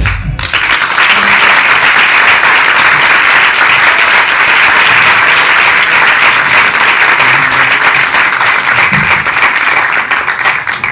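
Audience applauding steadily and loudly, easing off slightly near the end.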